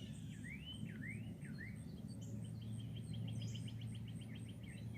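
Wild songbirds singing: a few rising slurred whistles, then a fast trill of short repeated notes, over a faint steady low hum.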